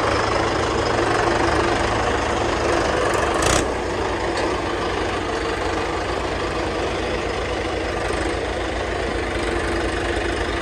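Heavy machinery's diesel engine running steadily, with one sharp knock about three and a half seconds in. After the knock the engine is slightly quieter, with an even low pulsing.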